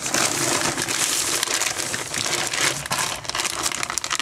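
Plastic shopping bag and snack wrappers crinkling and rustling continuously as packaged snacks are pulled out and handled.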